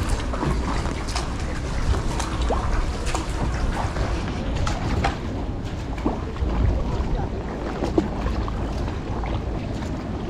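Kayak paddle strokes splashing and sloshing in the water, with scattered small drips and knocks, over a steady low rumble of wind on the microphone.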